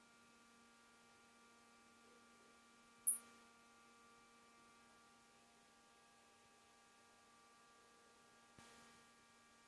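Near silence with a faint, steady electrical hum from the running high-temperature laboratory furnace. One short, sharp, high click comes about three seconds in.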